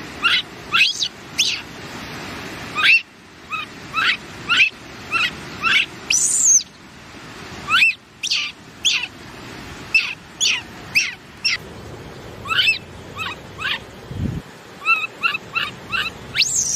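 Baby macaque giving a string of short, high chirping calls, each dipping slightly in pitch, one to two a second, with two higher, longer squeals, one around the middle and one near the end.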